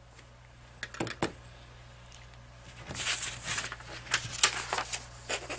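Sheets of paper rustling and crackling as they are handled and shuffled on a desk, after a few light clicks about a second in; the rustling starts about three seconds in and comes in irregular bursts.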